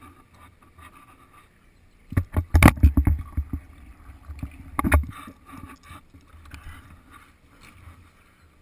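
Close, sharp knocks and rattles on or right next to a goalie's helmet-mounted camera: a dense cluster about two seconds in, another near five seconds, over a low rumble of wind on the microphone.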